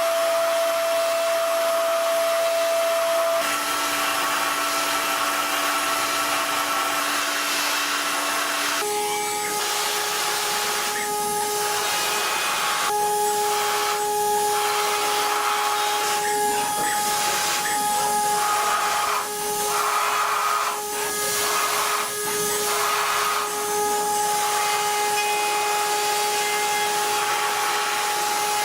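CNC metal lathe running: a steady whine over a hiss of cutting noise. The whine steps up in pitch about nine seconds in, and uneven surges of noise follow.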